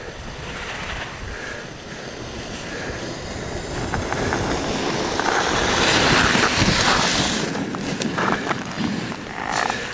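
Two alpine snowboards' edges carving hard on packed snow, a scraping hiss that builds as the racers come closer and is loudest about six to seven seconds in, then fades, with a few short clicks near the end. Wind rumbles on the microphone throughout.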